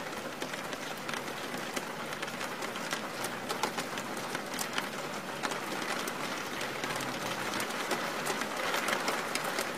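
Steady rain falling: an even hiss with many small drop ticks.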